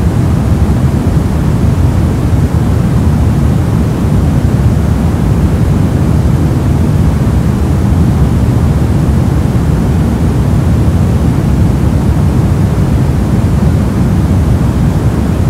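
Steady static noise, deep and even, heaviest in the low end and unchanging throughout.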